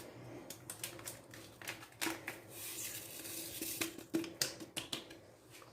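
Irregular light clicks and rustling of kitchen handling as a paper sachet of vanilla sugar is opened and emptied into a bowl of beaten eggs.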